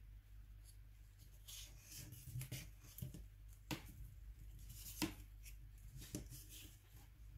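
Fingers handling small metal and plastic parts of a Nokia N93 phone while fitting its camera module: light scratchy rubbing with a few sharp little clicks, the loudest about five seconds in.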